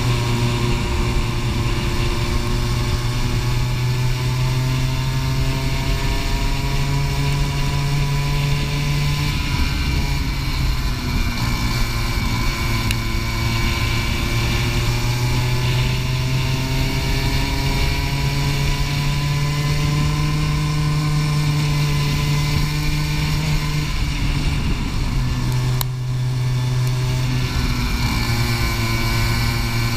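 Go-kart engine heard from on board at racing speed, its pitch climbing slowly along the straights and falling away into the corners, over and over. The pitch drops briefly about 26 seconds in, then climbs again.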